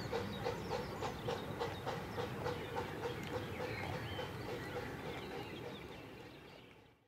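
Distant miniature park-railway steam locomotive chuffing in an even beat of about three exhaust beats a second as it hauls its train, fading out near the end.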